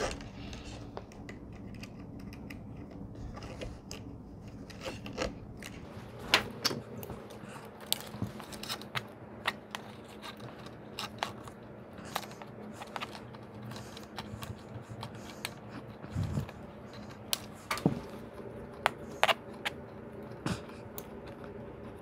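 Picture-hanging wire being threaded through the hanging hardware on the back of a frame and twisted by hand: many small scattered metallic clicks, ticks and scrapes over a steady low hum.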